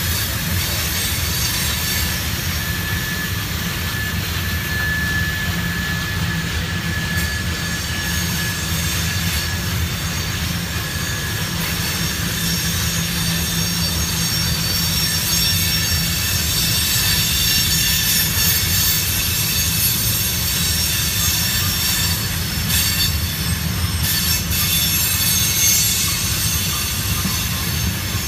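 Freight train of tank cars rolling past on the curve: a steady rumble of steel wheels on rail, with thin high wheel squeal over it. The squeal is clearest in the first several seconds.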